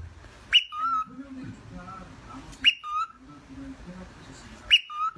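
Three whistled calls about two seconds apart, each a sharp upward sweep that drops to a lower held note.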